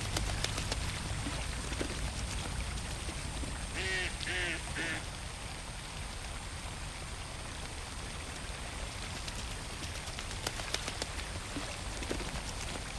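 A duck quacks three times in quick succession about four seconds in, over a steady pattering of pond water.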